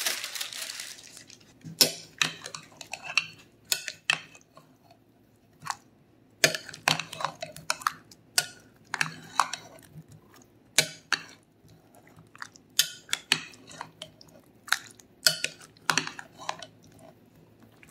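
A metal spoon stirring meatballs through sauce in a glass bowl, clinking and scraping irregularly against the glass.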